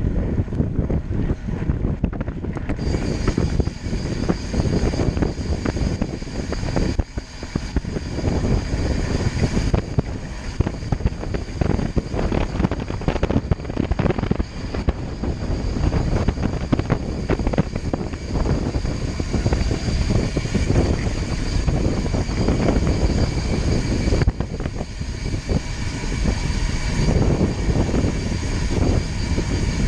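A vehicle running at speed, a steady low rumble with gusts of wind buffeting the microphone. From about three seconds in, a steady high whine runs over the rumble.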